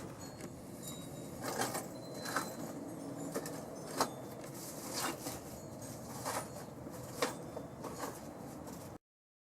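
Scattered light knocks and clicks, about six over several seconds, over a faint steady hum; the sound cuts off suddenly to silence near the end.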